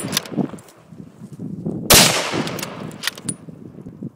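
A single loud gunshot about two seconds in, the second of two shots at a young wild boar, followed by a long echo that dies away over about a second. At the start the echo of the first shot is still fading.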